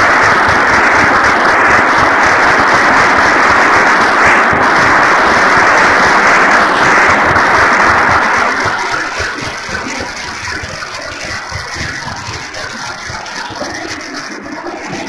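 Audience applauding and cheering at the close of a lecture, loud for about eight seconds, then dying down and going on more softly.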